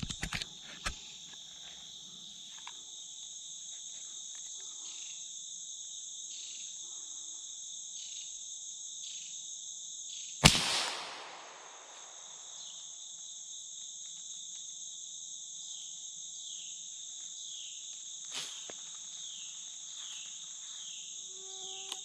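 Steady high chorus of insects, with a few clicks near the start. About halfway through comes a single loud gunshot that rings on for a second or so.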